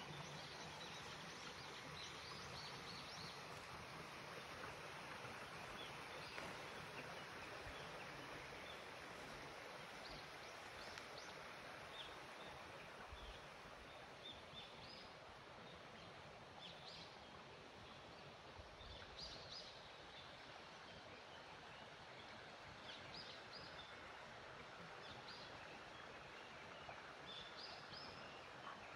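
Faint outdoor ambience: a steady, even hiss with scattered short, high chirps, more of them in the second half.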